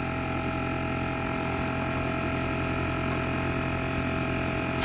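Bostitch air compressor running steadily with a constant motor hum. A single sharp snap comes near the end.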